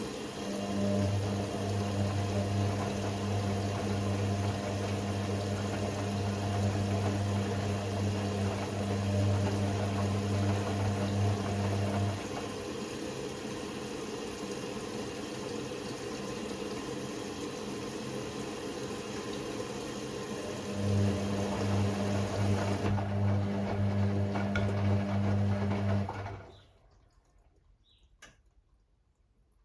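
Hoover Six Sportswear AI130 washing machine with water rushing through it and a pump humming steadily, which stops partway through, starts again, then cuts off near the end.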